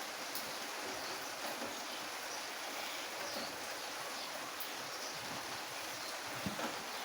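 Steady rain falling, an even hiss, with one brief thump near the end.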